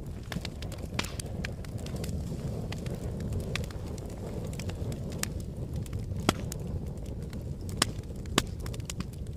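Wood fire burning: a steady low rush of flame with scattered sharp crackles and pops, three louder pops in the second half.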